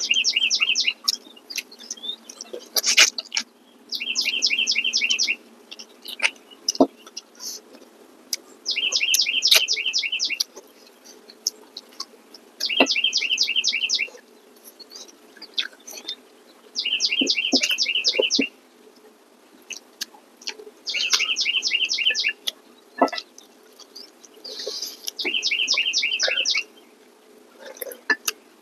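A songbird singing the same short, high, fast trill of repeated notes over and over: each phrase lasts about a second and a half and comes back about every four seconds. Scattered small clicks of spoons and dishes fall between the phrases.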